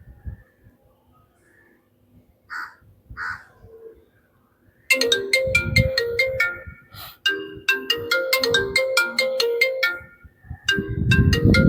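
An iPhone 11's freshly replaced loudspeaker playing a ringtone as a test of the new speaker: a fast, loud run of bright chiming notes that starts about five seconds in. Before it, a crow caws twice.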